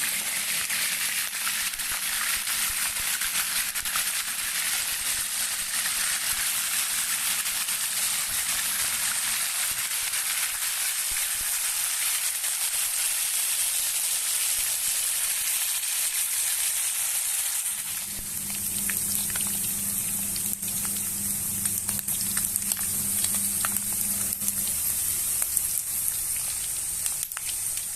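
Chicken cartilage frying in hot oil: a steady sizzle full of small crackles. About eighteen seconds in, a low steady hum joins and the sizzle eases slightly.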